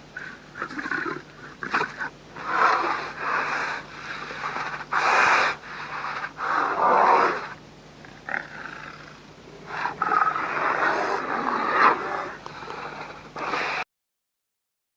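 Quatran creature sound effect: a string of raspy growls and roars, each from a brief snarl to about a second and a half long, with short pauses between them. It cuts off suddenly near the end.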